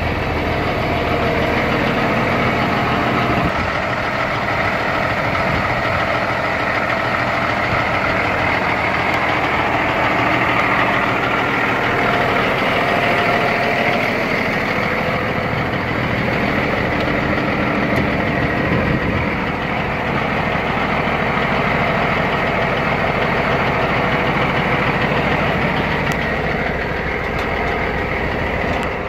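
Diesel engine of a 2010 Peterbilt 387 semi-truck idling steadily.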